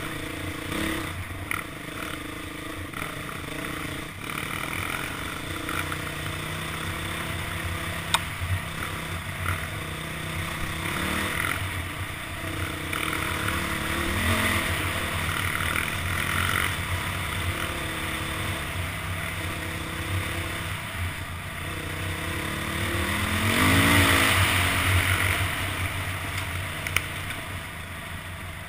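Dirt bike engine running as the bike rides along a trail, its pitch rising and falling with the throttle. The biggest rev comes about two-thirds of the way in and is the loudest point.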